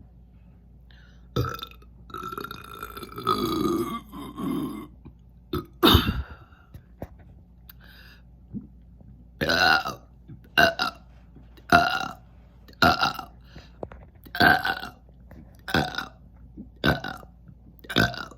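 A woman burping on command, over and over. A long drawn-out burp comes a second or two in and another follows near six seconds; then a run of about eight short burps roughly a second apart.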